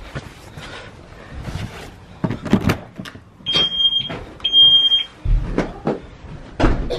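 Footsteps and door handling as someone comes in through a front door, with clicks and knocks. About halfway through, two short high electronic beeps sound about a second apart, each lasting about half a second. A low thud follows just after the second beep.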